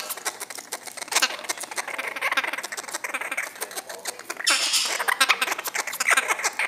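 Tucuman Amazon parrot vocalizing: a run of rapid clicks and chattering sounds, with a harsh, noisy call about four and a half seconds in.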